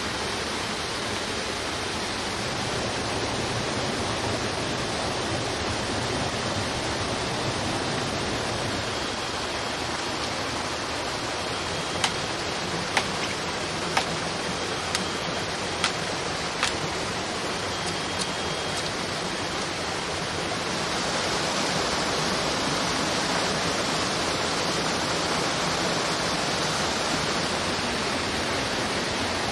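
Forest stream and small waterfall rushing steadily. About halfway through come about six sharp chops of a blade into wood over some five seconds. Later the water hiss turns brighter.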